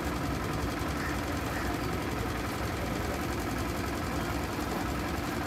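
An engine idling steadily, a low even hum with no breaks or changes.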